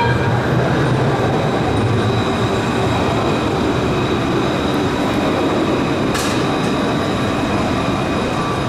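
Alstom Citadis 403 low-floor tram passing close by on street track: a steady rumble of motors and steel wheels on rail with a faint high whine. A single sharp clack about six seconds in.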